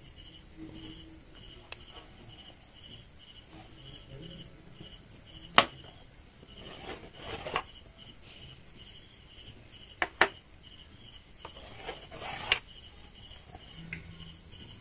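A cricket chirping steadily, about three short chirps a second, under a few sharp taps and two spells of scraping and rustling as a wooden ruler and hands are moved over stretchy mesh fabric on a wooden table; the loudest tap comes about a third of the way in.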